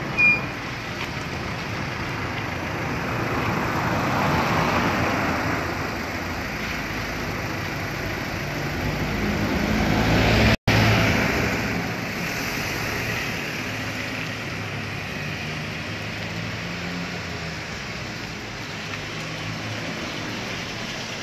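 Street traffic: vehicles passing, one swelling up and fading about four seconds in, another building up to the loudest point near the middle, where the sound cuts out for a moment, then a steady lower wash of traffic noise.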